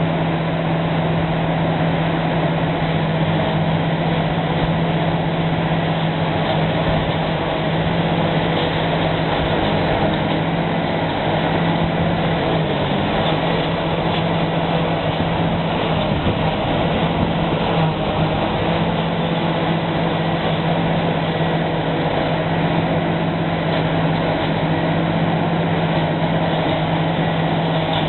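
Self-propelled forage harvester running under load, chopping large square straw bales fed into its pickup by a forklift: a steady, heavy drone with a strong low hum.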